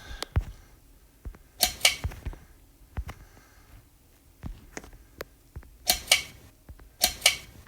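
Irregular clicks and knocks, with a few short, sharp scraping bursts about two seconds in and again near the end.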